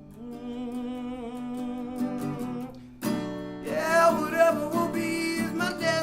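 Acoustic guitar playing with a voice singing a melody over it, without clear words; it swells louder and fuller about three seconds in.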